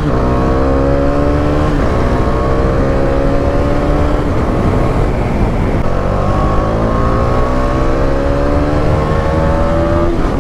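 Bajaj Dominar 400's single-cylinder engine accelerating under the rider, its pitch climbing and falling back at each gear change, with wind rushing past.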